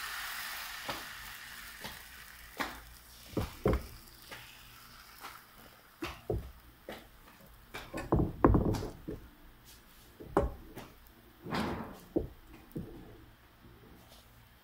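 Bánh xèo batter sizzling in a hot non-stick frying pan, the hiss dying away within the first second or so, followed by scattered knocks and clicks, with a couple of louder ones past the middle.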